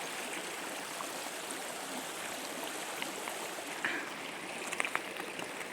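A small mountain stream flowing with a steady rush of water, with a few faint clicks near the end.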